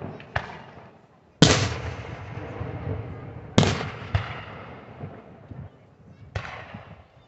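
Aerial firework shells bursting overhead: five sharp booms, the two loudest about a second and a half and three and a half seconds in, each trailing off in a long echo.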